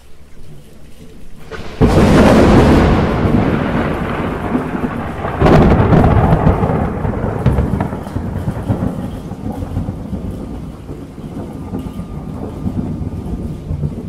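Thunder cracking twice, about two seconds in and again about five seconds in, each crash rolling away into a long low rumble, over steady rain.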